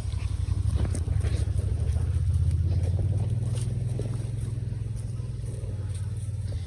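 A large engine running close by with a fast, low, even throb. It grows louder about a second in, then eases back a little.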